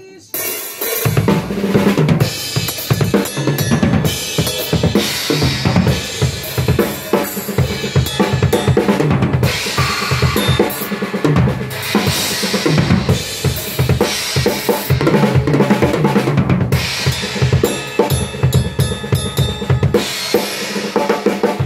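Acoustic drum kit played continuously: kick drum, snare and cymbals in a driving groove with fills. It begins abruptly just after a short gap.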